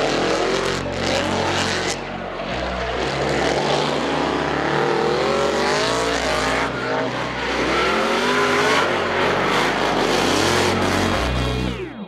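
Supercharged LS-series V8 in a BMW E93 M3 drift car, revving up and down as the throttle is worked through a smoky drift. Near the end the sound sweeps down and cuts off.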